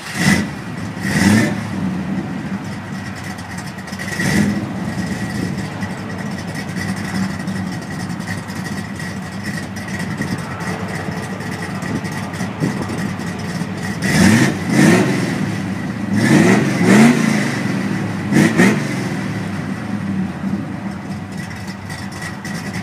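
A classic car's engine idling through its exhaust and blipped several times, each rev rising and falling quickly. There are a few blips in the first few seconds, then a run of four or five quick revs in the second half.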